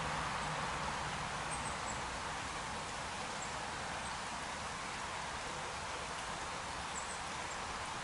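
Small stream running over a shallow gravel riffle: a steady rushing of water.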